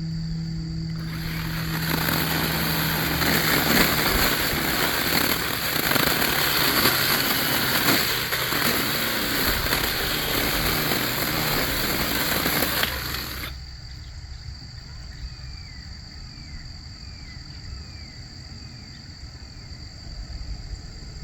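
Battery-powered electric chainsaw running and cutting into a tree for about twelve seconds, then stopping suddenly. Afterwards a bird chirps a few times.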